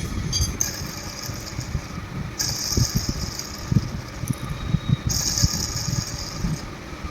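Irregular knocking and rattling, with two bursts of hissing about a second and a half long each, about two and a half and five seconds in.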